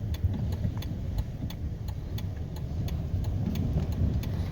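Car cabin road noise while driving: a steady low rumble of tyres and engine, with a light scatter of sharp ticks, a few per second.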